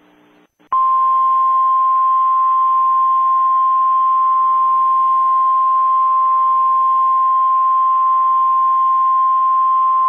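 Emergency Alert System attention tone: a single loud, steady beep that starts just under a second in and holds at one pitch, over a faint hiss.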